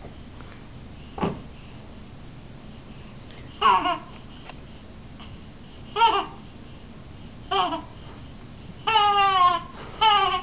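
A baby vocalizing in short, high-pitched squeals, five of them from a few seconds in, the longest near the end wavering in pitch. A soft tap about a second in.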